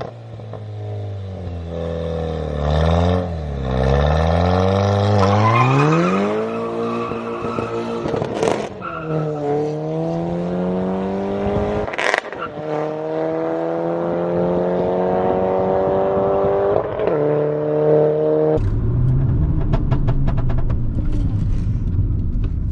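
Stage 2 Mk6 Golf GTI's turbocharged four-cylinder engine accelerating hard under full throttle, its pitch climbing and then dropping at each upshift, with three shifts in the first twelve seconds. Near the end the engine note falls to a steadier, lower drone as the car eases off.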